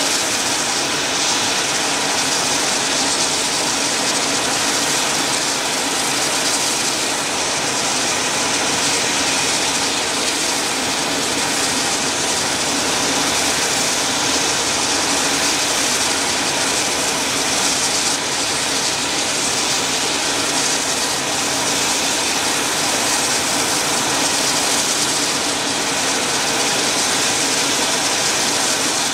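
AH-64D Apache attack helicopters with their twin turboshaft engines running: a loud, steady turbine noise with a strong high hiss that holds level throughout.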